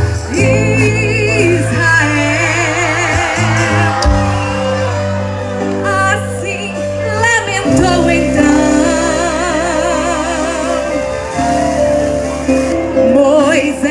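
Live gospel band music with a woman singing sustained notes with a wide vibrato over held bass and accompaniment.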